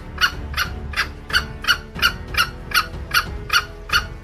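Jungle fowl clucking: a steady run of short, sharp calls, about three a second.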